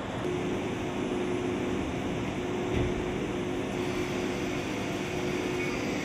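Steady machine hum of surgical equipment and room ventilation, with a short low thump nearly three seconds in.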